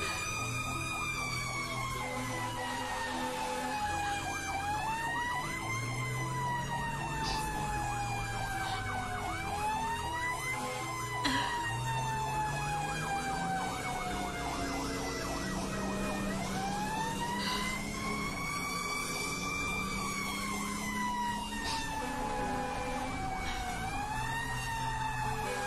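Fire engine siren wailing, heard from inside the truck's cab. Its pitch falls slowly and then sweeps quickly back up, about four times, over a low drone.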